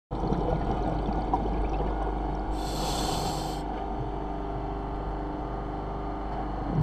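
Scuba diver breathing through a regulator underwater: one inhaled hiss from about two and a half to three and a half seconds in, over a constant low rumbling noise.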